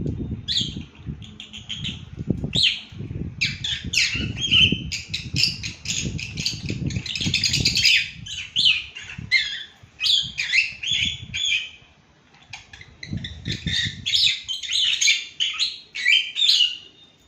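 Pet cockatiels and budgies chattering and chirping in quick warbled runs, the drowsy chatter their owner calls blabbering in their sleep, with a short lull about twelve seconds in. Low dull knocks run underneath.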